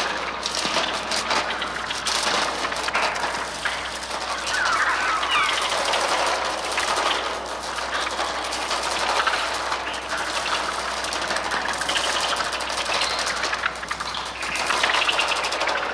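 Electronic bird sounds made on a Mixtur-Trautonium: a dense, continuous rattle like fluttering wings, shot through with short chirping and screeching glides.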